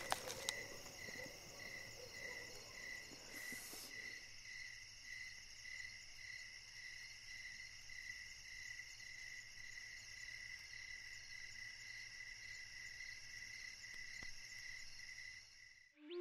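Crickets and other night insects chirping: a steady, evenly pulsing high trill in several pitches. It cuts off just before the end.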